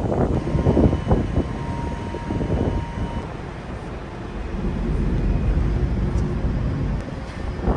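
Wind buffeting the microphone on the open deck of a moving passenger ferry: a steady low rumble with irregular gusts in the first few seconds, evening out after that.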